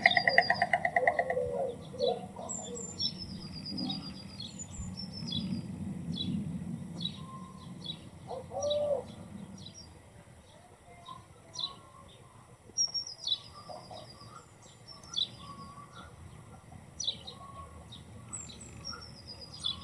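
White stork clattering its bill, a rapid even rattle that stops about a second in. After it, small songbirds chirping with short, high, repeated phrases.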